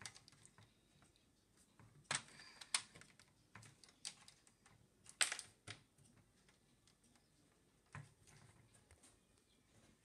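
Faint clicks, taps and light scrapes of small plastic toy figures and parts being handled and fitted into a plastic playset, with louder clicks about two and five seconds in.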